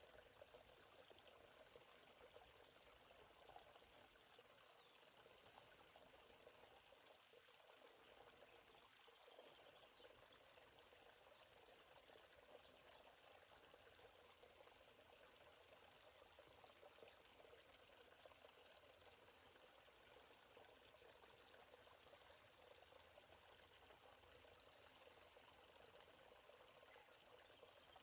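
Steady high-pitched insect chorus, unbroken throughout, over the faint even rush of a forest stream.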